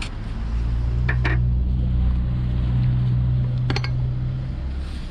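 A low, steady hum swells in, holds, and fades out near the end, with a few light metallic clinks about a second in and again near four seconds, typical of metal parts being handled.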